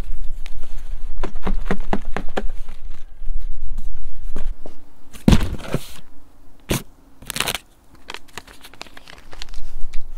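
Crackling, rustling and knocking as kitchen scraps and newspaper are tipped from a foam box into a wooden compost bin, with wind rumbling on the microphone through the first half.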